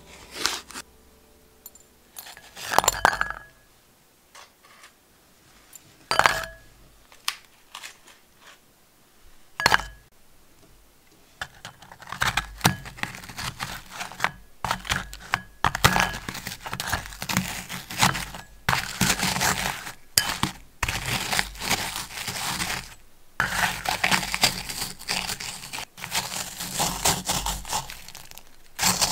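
The plastic wrapper of a roll of Dr. You Diget digestive biscuits crinkling and tearing open in a few separate bursts. Then, from about twelve seconds in, the biscuits are crushed in a glass bowl with a metal potato masher: steady crunching of breaking biscuits with clinks of metal on glass.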